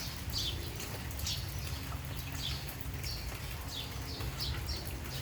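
Birds chirping outdoors in short, falling chirps about twice a second, over the steady hiss of rain and a low hum.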